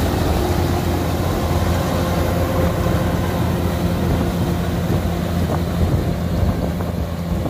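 Kubota DC105X combine harvester running steadily under load, its diesel engine drone holding an even pitch over the rattle and hiss of the threshing and cutting machinery.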